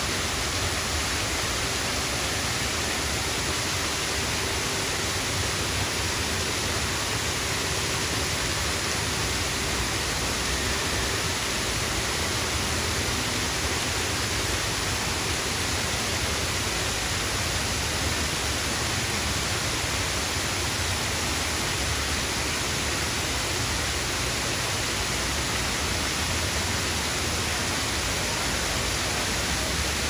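Small waterfall pouring over a rock ledge into a churning pool: a steady, even rush of falling water.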